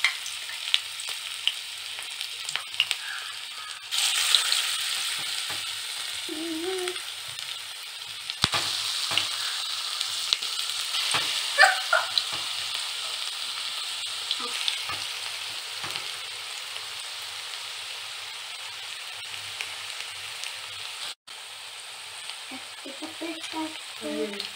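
Cabbage pakoda fritters deep-frying in hot oil, giving a steady hissing sizzle with scattered clicks and pops. The sizzle grows louder about four seconds in.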